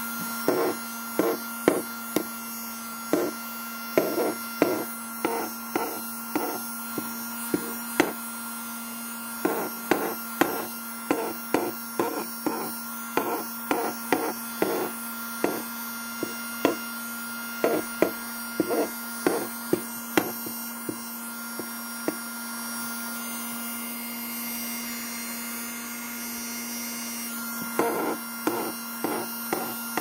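Tiny handheld vacuum cleaner running with a steady motor hum while pencil shavings click and rattle as they are sucked into its clear plastic nozzle. The clicks come in quick clusters, stop for several seconds past the middle, and start again near the end.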